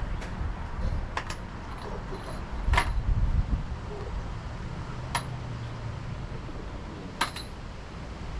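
A handful of short, sharp metallic clinks, two close together about a second in and single ones spread through the rest, over a steady low rumble of wind.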